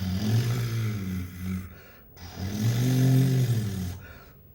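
A man imitating with his mouth an old car's engine that struggles to start and won't catch: two low, rough sputtering turns of about two seconds each, the second swelling and then dying away.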